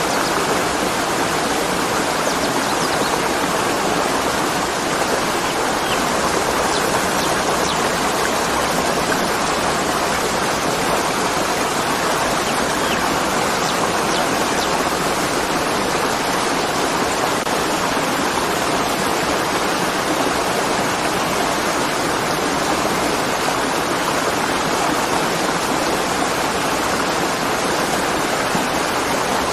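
A tall waterfall crashing steadily, a constant loud rush of falling water.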